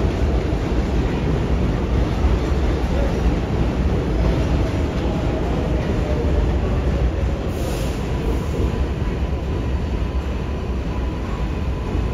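R188 subway train on the 7 line running through the station: a steady, loud rumble of wheels and motors, with faint steady whines. A short hiss comes about two-thirds of the way through.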